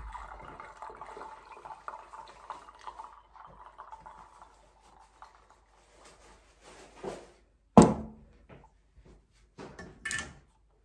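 Hot herbal infusion trickling from a stainless steel pot through a plastic strainer and funnel into a bottle for about five seconds. It is followed by a few knocks as the pot and funnel are handled, the loudest about eight seconds in.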